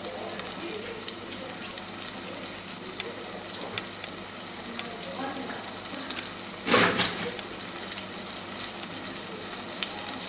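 Bananas deep-frying in a pan of hot oil: a steady sizzle with fine crackling, and a brief louder burst of sizzle about seven seconds in.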